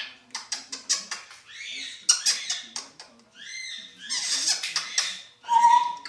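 African grey parrot vocalising: a rapid run of beak clicks and squeaky, speech-like mimicked sounds, ending with a short clear whistle near the end.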